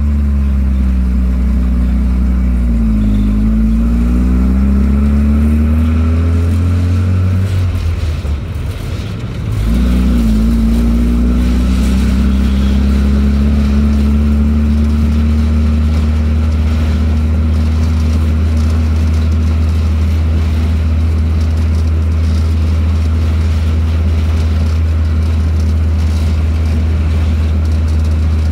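1942 Autocar M16A1 half-track's White six-cylinder petrol engine pulling the vehicle along, heard from inside the cab. The engine note rises and wavers, then falls away briefly about eight seconds in. It picks up again and settles into a steady cruising drone.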